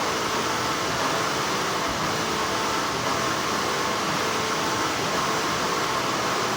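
Steady hum and whir of textile factory machinery, an even noise with a few faint steady tones in it.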